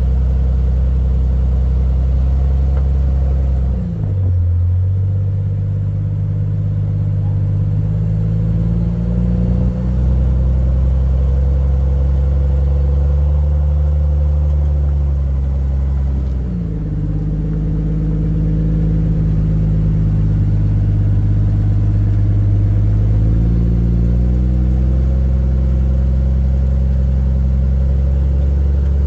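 Jeep Cherokee XJ engine pulling at low revs as the rig crawls up a rock ledge, the revs sliding up and down a few times, about four and seventeen seconds in.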